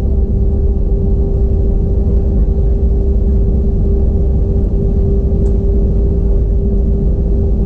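Steady cabin noise inside an Airbus A320: a low rumble of engines and air with a constant humming tone over it.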